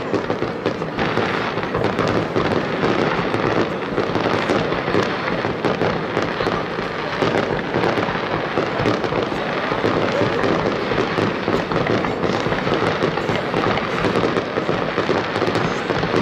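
Aerial firework shells bursting one after another in a dense, continuous barrage of bangs and crackles with no pause.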